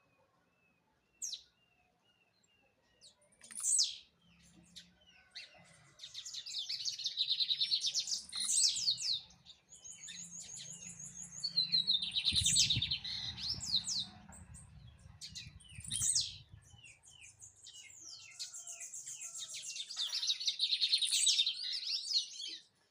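Lined seedeater (bigodeiro) singing: three long songs of rapid, high, stuttering trills, with single sharp chip notes in the gaps between them.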